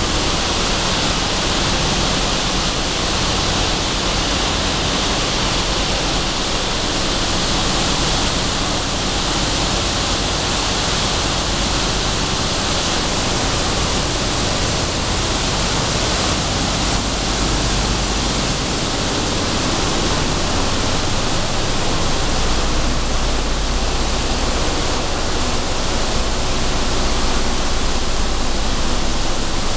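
Sunflower seed dehulling line running: dehullers and cleaning and sorting machines make a loud, steady, hissing mechanical noise, with a low rumble that grows stronger about two-thirds of the way in.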